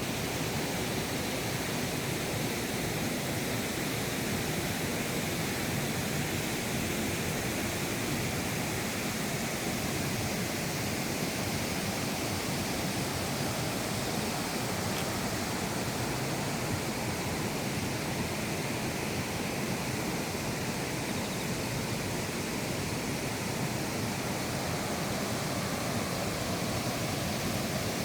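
Mountain valley stream rushing steadily over rocks, running full after rain.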